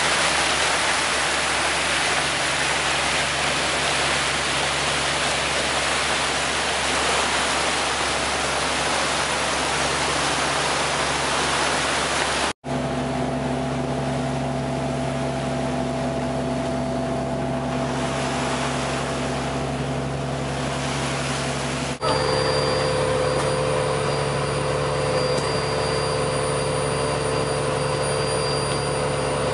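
Sea water churning and rushing past a moving fishing boat's hull over the boat's engine drone. About twelve seconds in the sound cuts abruptly to a steadier engine hum with several held tones, and it cuts again to a similar hum near the two-thirds mark.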